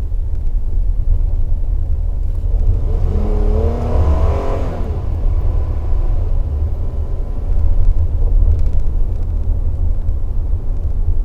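Toyota Tacoma pickup driving, with a heavy steady road and wind rumble. About three seconds in an engine note rises in pitch as it accelerates, swells for a couple of seconds and fades back into the rumble.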